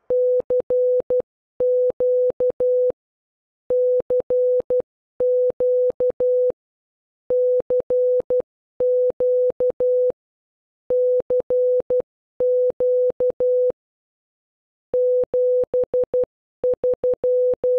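Computer-generated Morse code (CW): a single steady-pitched beep keyed on and off in dots and dashes. The letters come in clusters with short pauses between them and a longer pause about two-thirds of the way through.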